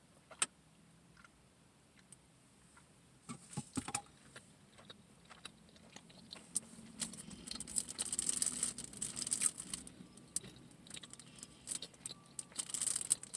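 Close-miked chewing and wet mouth clicks from eating a pancake-and-sausage griddle cake sandwich. The sounds come in scattered clicks, with busier stretches of chewing in the middle and near the end.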